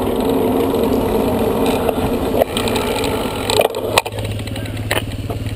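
A truck engine running steadily, a low hum, with a few sharp clicks and knocks in the second half.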